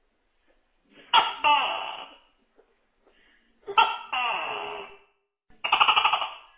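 Tokay gecko calling: two loud two-part "to-kay" calls, each a short first note followed by a longer falling second note, about two and a half seconds apart, then a quick rattling run of about ten pulses in a second near the end.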